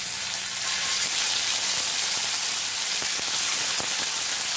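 Masala-coated fish sizzling steadily in hot coconut oil in a cast-iron tava, with a few faint crackles as more pieces are laid in.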